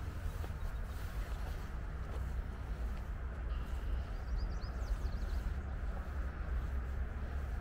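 Steady low rumble and hum of distant road traffic under the woods' ambience, with a few short high bird chirps about four to five seconds in.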